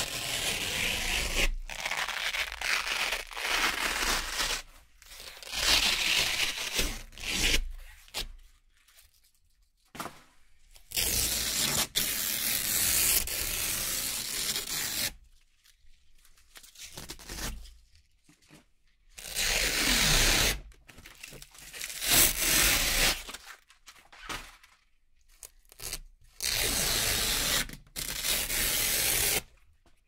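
Strips of Velcro hook-and-loop fastener peeled apart one after another: a series of ripping tears, each from under a second to several seconds long, with short quiet pauses between them.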